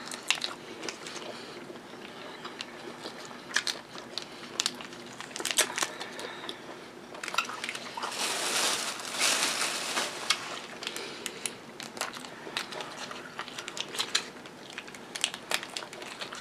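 Close-up eating and handling sounds: crunching and crinkling with many short sharp clicks, as a plastic sauce packet is bitten and worked open at the mouth. A longer rustling stretch comes about eight seconds in.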